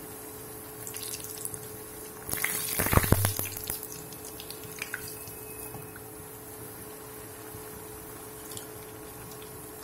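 Rice-flour puri deep-frying in hot oil in a kadai, a steady sizzle. About two to three and a half seconds in the sizzling and crackling swells much louder as the slotted spatula works the puri in the oil, then settles back.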